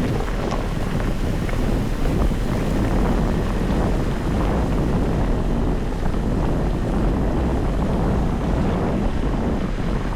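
Wind buffeting an outdoor microphone: a steady, loud low noise.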